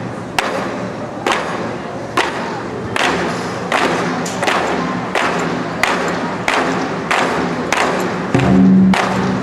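Troupe of large Chinese barrel drums (24 Festive Drums) played with sticks. A continuous rolling rumble is punctuated by sharp unison accents about once a second, coming slightly faster as it goes on. A loud held low tone enters about eight seconds in.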